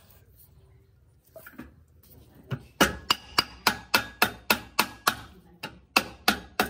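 Hammer striking a small rusty balance-car wheel whose axle is clamped in a bench vise: a few light taps, then about three seconds in a steady run of sharp blows, three to four a second, with a slight metallic ring.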